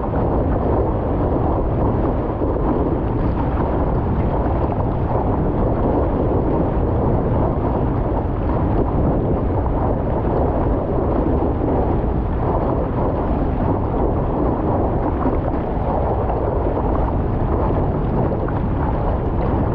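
Steady rush of wind buffeting the microphone together with water hissing and splashing past a windsurf board sailing at speed, picked up by a camera mounted on the board's deck. Muffled and low, with little treble.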